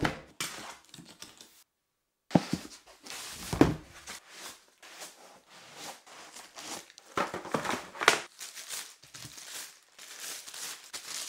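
Plastic and foam packaging wrap crinkling and rustling as boxed speaker units are unpacked and unwrapped, with a few knocks as pieces are set down on a wooden table.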